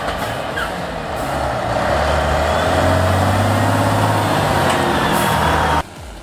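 A large engine running steadily, its low hum strengthening about two seconds in, with noise across the range above it. It cuts off abruptly near the end.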